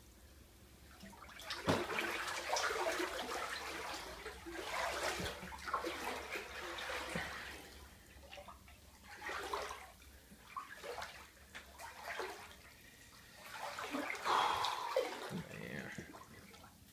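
Floodwater sloshing and splashing as someone wades through a flooded apartment, in uneven spells that are loudest about two seconds in and again near the end.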